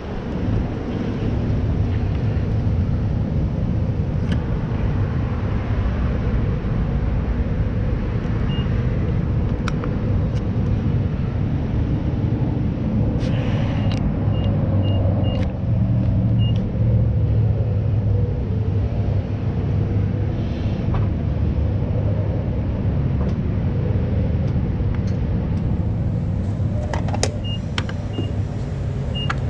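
Motorcycle engine idling steadily at the fuel pump, with short high beeps from the pump's keypad as buttons are pressed: one about a third of the way in, a quick run around the middle, and more near the end.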